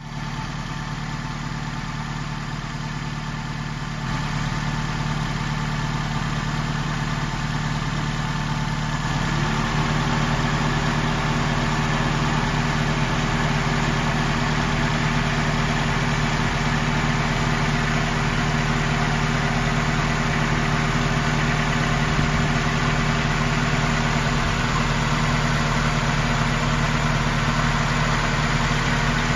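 Toyota Corona ST171's 2.0-litre 16-valve EFI four-cylinder engine (3S-FE) idling steadily, which the owner takes as a sign it still runs and vibrates well. About nine seconds in, a steady whine slides up and holds, and the sound grows louder.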